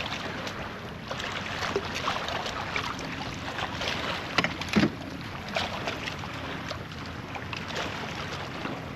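Small splashes and scattered knocks and clicks on a fishing kayak, with wind on the microphone; a brief cluster of louder knocks about halfway through.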